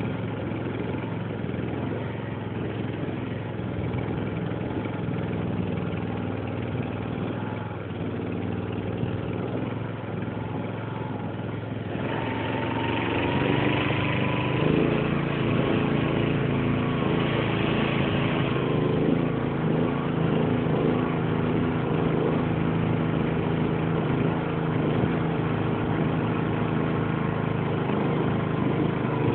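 Small boat motor running steadily, then revving up about twelve seconds in and running louder at a higher pitch. A rushing hiss rides over it for several seconds after the rev-up.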